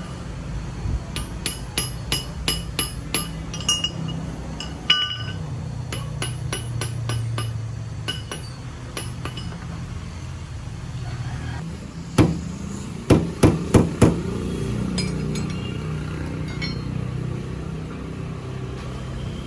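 Hammer striking metal: a quick run of ringing taps, a scattering of lighter taps, then about five heavier blows in close succession, over a steady low hum.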